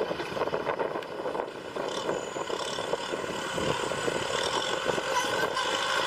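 Tractor engine running steadily while ploughing, with a few short knocks.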